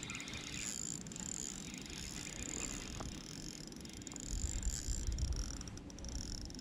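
Ultralight spinning reel ticking and whirring as a hooked big trout is played on the line. A low rumble, the loudest part, comes in about four seconds in and lasts about a second.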